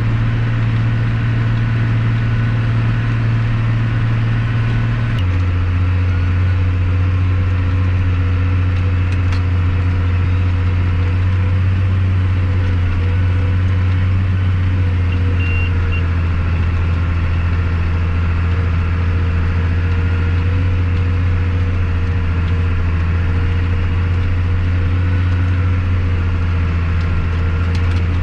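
Farm tractor engine running steadily while pulling a planter. Its low drone drops a little in pitch about five seconds in, then holds steady.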